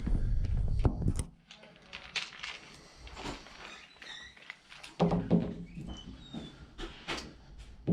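Screwdriver and hands working at an iMac's aluminium case while backing out T8 Torx security screws: knocks and clunks of handling, loudest in the first second and again about five seconds in, with small clicks and scrapes between.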